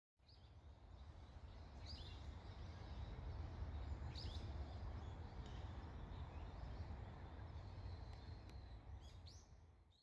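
Outdoor ambience: a steady low rumble with a few short bird chirps scattered through it, fading in at the start and out at the end.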